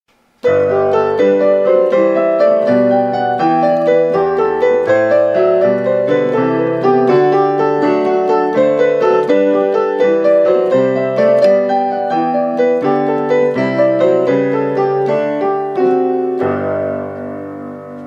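Solo piano music on a digital piano: a lively, steady run of notes that ends about sixteen seconds in on a held chord, which then fades.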